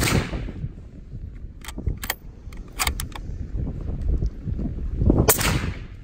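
Two suppressed rifle shots from a .260 Remington with a 24-inch barrel and an 8-inch Maverick 6.5 mm suppressor, one at the very start and one about five seconds in. Each is a sharp crack with a short fading tail, metering about 127 dB at the shooter's ear. A few sharp clicks fall between the shots.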